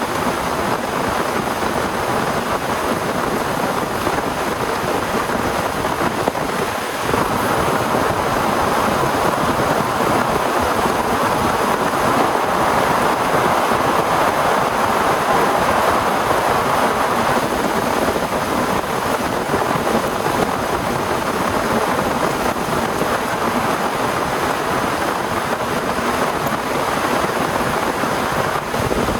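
Heavy rain falling steadily, a dense hiss that grows a little louder about seven seconds in.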